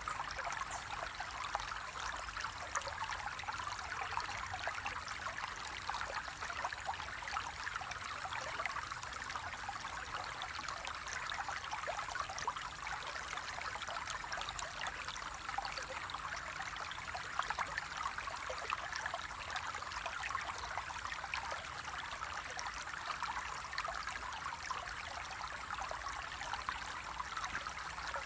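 Flowing water running steadily, a continuous rush with many small trickling splashes.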